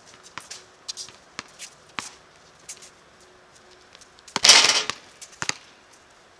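Scattered sharp knocks and thuds of a basketball game, with one loud, noisy burst lasting about half a second some four and a half seconds in.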